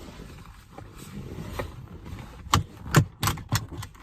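Car seatbelt being fastened: a handful of sharp clicks and knocks in the second half, the loudest about three seconds in, over a steady low car-cabin noise.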